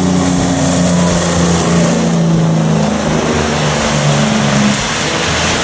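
A motor vehicle engine running and revving, a steady low hum that shifts in pitch a few times.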